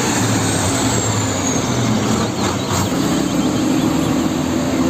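Truck engine running steadily, with a faint high whine falling away in the first second or so.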